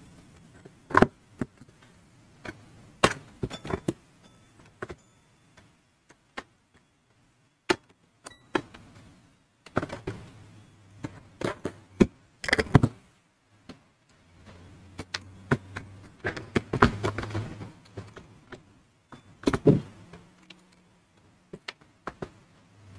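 Scattered clicks, taps and knocks from handling a TV power-supply circuit board and a digital multimeter's test probes on a workbench, with a low hum that comes and goes in the second half.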